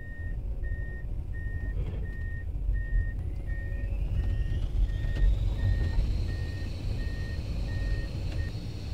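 Komatsu PC210 excavator's diesel engine running under load with a heavy rumble, while its motion alarm beeps steadily, about one and a half beeps a second, stopping near the end. Partway through, a whine from the machine rises in pitch over a few seconds, then holds.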